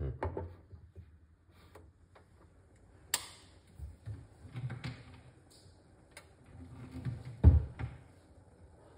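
Scattered ticks, pops and knocks from a stainless saucepan of sorrel tea heating on an electric hot plate, small bubbles forming as it comes up to a simmer. A sharp click comes about three seconds in, and the loudest sound, a low thump, about seven and a half seconds in.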